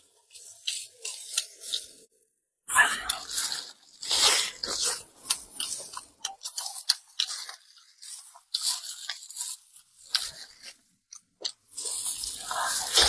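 A person chewing and biting food close to the microphone: irregular wet, crunchy mouth sounds in short bursts, with a brief pause about two seconds in.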